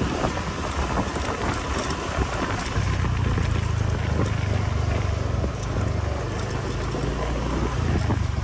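Honda motor scooter's engine running as it rides along a street, with wind and road noise over the microphone; the low engine hum grows louder about three seconds in.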